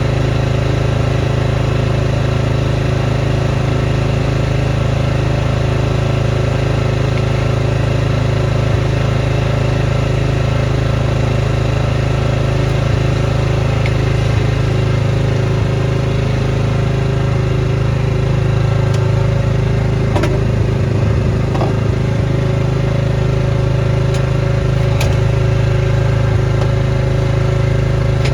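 Small engine of a snowblower running steadily at an even speed, with a few faint clicks about two thirds of the way through.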